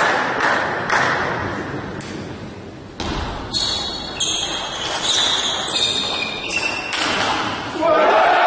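Table tennis rally: a quick series of sharp ball strikes on bats and table, each with a high ringing, echoing in a large hall. Crowd noise fades out before the rally and swells again near the end as the point is won.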